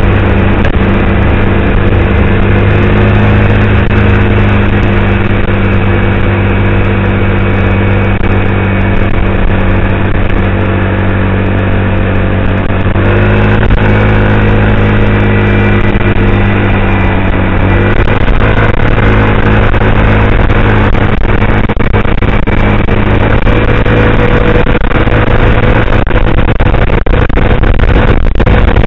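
Yamaha Zuma 125 scooter's single-cylinder engine running steadily while riding at freeway speed. Its note steps slightly twice, about halfway through and again a few seconds later.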